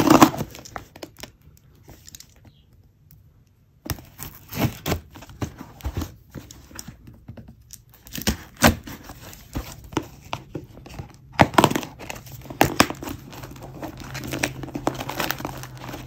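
Hands tearing packing tape off a cardboard shipping box and working the flaps open, with irregular sharp rips, crinkling and scraping. A pause of about two seconds comes near the start.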